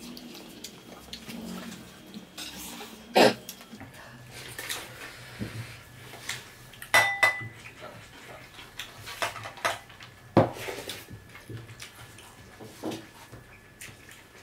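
Plates and steel dishes clinking and being knocked on a table during a meal eaten by hand. A handful of sharp knocks, the loudest about three and ten seconds in, and one short ringing clink about seven seconds in.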